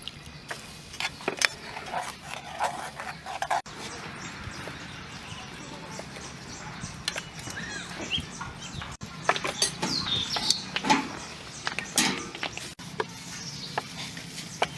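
Scattered clinks and knocks of cooking utensils on pots and plates, with birds chirping in the background.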